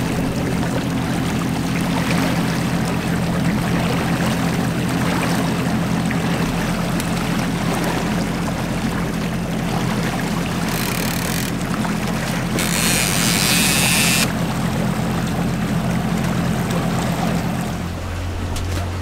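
Boat motor running at a steady low hum, with water noise around the hull. Two brief hissing rushes come in the second half, the longer one lasting about a second and a half.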